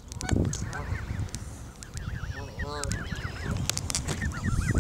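Canada geese calling: runs of short, quick, arched calls, with a deeper call with several harmonics a little past the middle.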